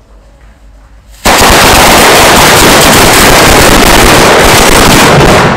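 A string of firecrackers going off: a sudden, very loud rapid-fire run of bangs starting about a second in, lasting about four seconds and dying away near the end.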